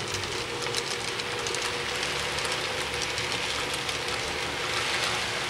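Model railroad freight cars rolling past on the track: a steady rolling hiss of small metal wheels on rail, with a faint steady hum underneath and a few light clicks.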